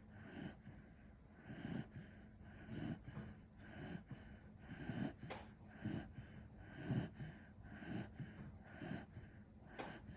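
Kishu dog snoring in its sleep: short, low, rasping snores about once a second.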